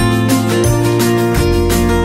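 Background music with a steady beat and a changing bass line.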